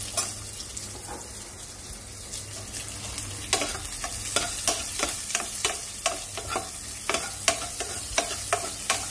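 Chopped onion and garlic sizzling in rendered pork fat in a pot. From about three seconds in, a metal spoon stirs and scrapes the pot in quick strokes, about three a second, over the steady sizzle.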